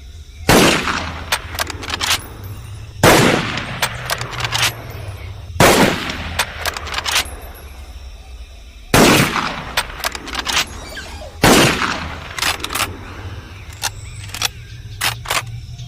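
Type 97 rifle fired five times, a shot every two and a half to three and a half seconds, each with a long fading echo. A quick run of sharp clicks follows each shot, and more clicks come near the end.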